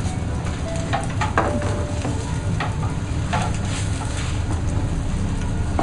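Yakitori skewers sizzling on a grill, with scattered crackles and pops as the grill flares up, over a steady low hum.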